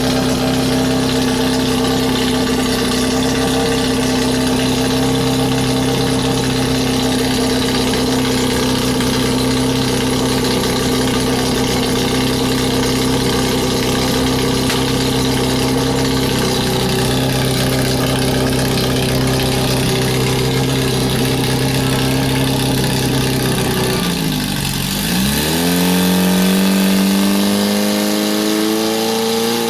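Portable fire pump's petrol engine running at a high, steady speed; near the end its pitch drops sharply, then climbs back up as it revs again.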